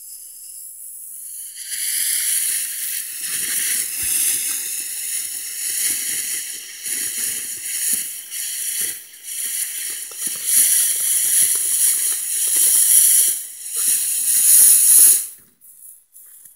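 Ground firework fountain spraying sparks: a loud, steady hiss with irregular crackles, starting about a second and a half in and cutting off suddenly as the fountain burns out near the end.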